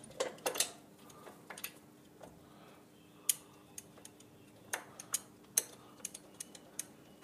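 Scattered small metallic clicks and taps at an irregular pace as button screws are fitted by hand through a chrome spike air cleaner into its backing plate, over a faint steady hum.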